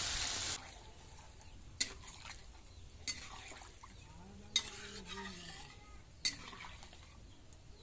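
Vegetables and spices frying in a metal kadai, sizzling, until the sizzle cuts off abruptly about half a second in. Then, at a much lower level, a metal spatula stirring with a few sharp knocks against the pan.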